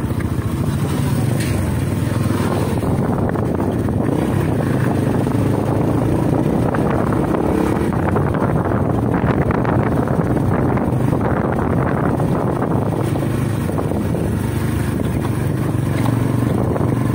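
Steady engine drone and road noise of a moving vehicle, heard from on board.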